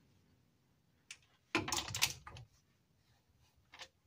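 Ratchet of a torque wrench clicking as a connecting-rod cap's 12 mm nuts are tightened a little at a time: one click about a second in, a quick run of clicks from about halfway through, and a short burst near the end.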